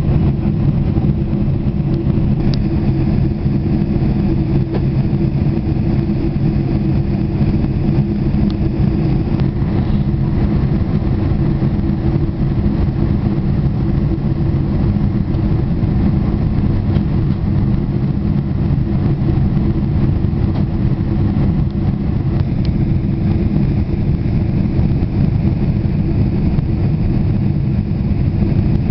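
Steady cabin noise inside a Boeing 747 on its landing approach: a constant low rumble of engines and airflow, unchanging throughout.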